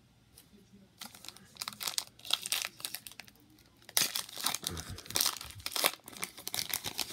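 Foil wrapper of an Optic basketball card pack being torn open and crinkled by hand. The crackling comes in bursts starting about a second in and is loudest around the middle, as the wrapper is ripped apart and the cards are pulled out.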